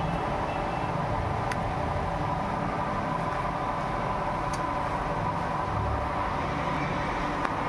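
Steady background noise: a low rumble and hiss with a faint steady hum, and a couple of faint clicks.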